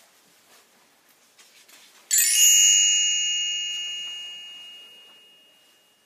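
A bright bell chime rings out about two seconds in and fades away over about four seconds: the page-turn cue of a read-along storybook.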